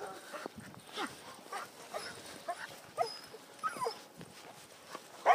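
Husky-type dog whining in short, high, repeated cries, about two a second, while straining on its leash: excited whining at the sight of another dog.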